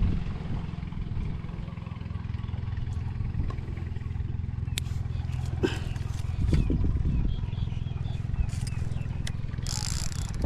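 A small engine running steadily with a low, even drone, with a few sharp clicks about halfway through.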